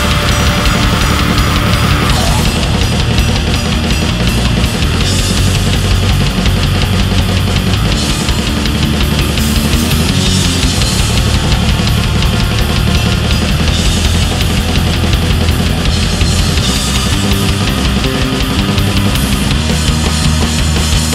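Heavy metal music driven by fast, dense drumming, with rapid bass-drum strokes under cymbals and guitars.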